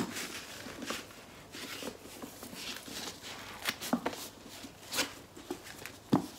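Cardboard lipstick boxes and their paper packaging being handled: light rustling with several sharp taps and clicks.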